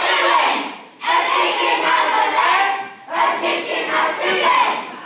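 A large group of children singing and chanting together in unison, in phrases about two seconds long with short breaks between them, echoing in a large hall.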